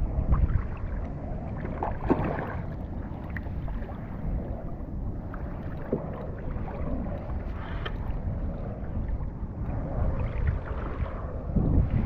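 Wind noise on the microphone and water sloshing against a kayak at sea, with a few scattered light clicks.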